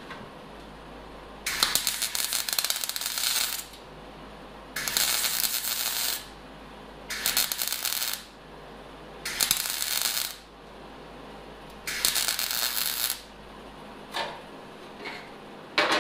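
Wire-feed welder arc crackling in five short bursts of about one to two seconds each, as a drilled hole in a sheet-metal radiator support is welded shut. A few light clicks follow near the end.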